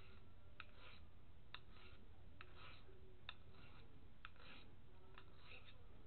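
Pocket knife blade being stroked along the fine side of a handheld diamond sharpener, about one stroke a second: each stroke starts with a light click as the edge meets the plate and runs on into a short scrape.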